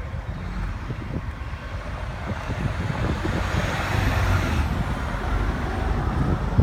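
Road traffic: a vehicle passes, swelling to a peak about four seconds in and fading again, over a steady low rumble.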